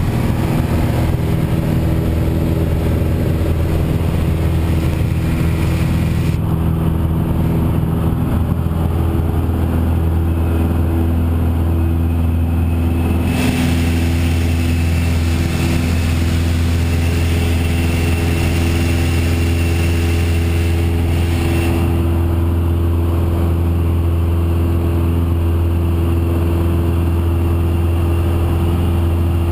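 Piper Warrior's four-cylinder Lycoming engine and propeller at takeoff power, heard from inside the cabin as a loud, steady drone through the takeoff roll and climb-out.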